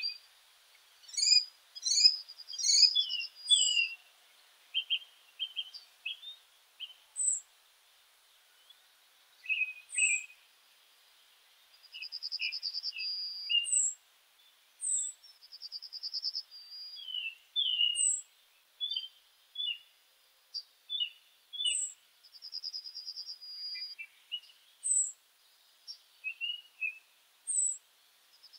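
Several birds chirping and singing: short high chirps every second or two, mixed with lower notes, and now and then a rapid trill about a second and a half long.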